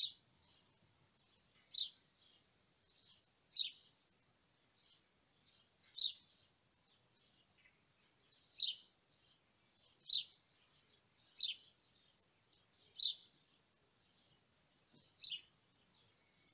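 Short scratchy strokes of a pink Sharpie felt-tip marker on a cardboard envelope, a sharp stroke every second or two with fainter small scratches in between.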